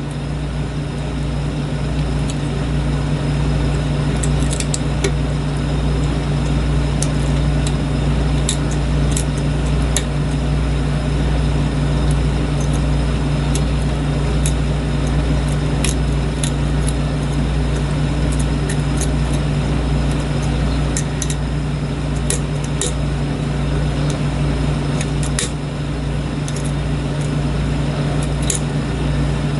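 A steady low hum from a machine or fan, with scattered faint light clicks of a hook pick working the pins inside a lock cylinder.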